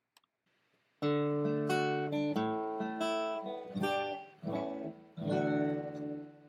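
Acoustic guitar music: after a second of quiet, chords are strummed about once a second, and the last one rings on and slowly fades.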